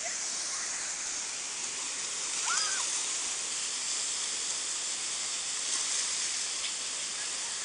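Rushing river water: a steady, even hiss of churning white water. A brief high call rises and falls about two and a half seconds in.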